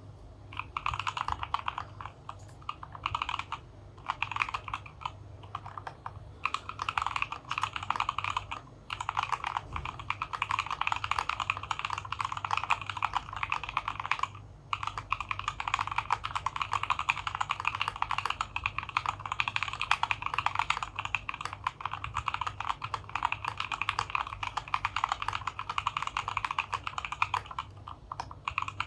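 Continuous typing on a DZ60 60% mechanical keyboard in a wooden case, fitted with Gateron Milky Black linear switches, XDA keycaps and foam and tape dampening. The keystrokes come in quick runs with a few brief pauses, the longest about half way through.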